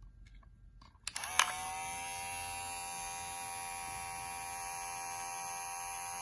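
A BESTBOMG electric hair clipper is switched on about a second in with a click, then its motor and blades run with a steady, high-pitched buzzing hum.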